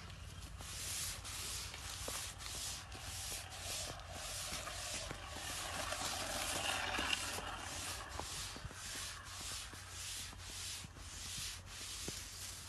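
Kite string (dor) being worked by hand along its taut length: repeated rubbing strokes on the thread, a rhythmic hiss about twice a second.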